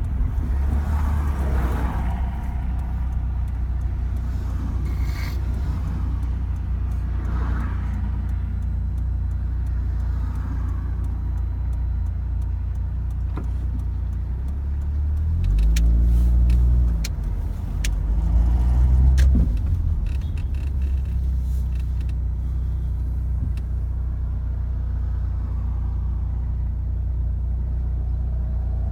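Car engine idling steadily, revved up and back down twice about halfway through. The engine is one being checked for a knock.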